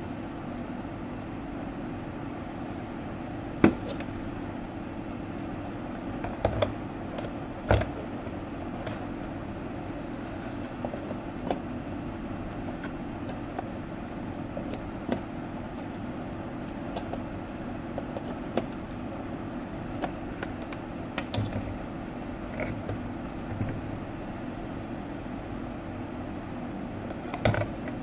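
Scattered clicks and knocks of an electric Turkish coffee machine and its coffee pot being handled, the loudest about four seconds in and a cluster near the end, over a steady low hum.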